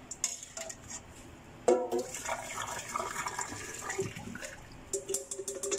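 Hot potato-cooking water being poured out of a pot into a sink: a steady splashing pour that begins suddenly a little under two seconds in and lasts about three seconds.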